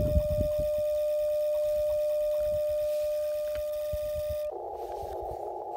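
Icom IC-705 transceiver sounding a steady single-pitch tone while it sends a tuning carrier for the mAT-705Plus automatic antenna tuner on the 80 m band. About four and a half seconds in the tone stops as the tune finishes, and the receiver's band-noise hiss comes in.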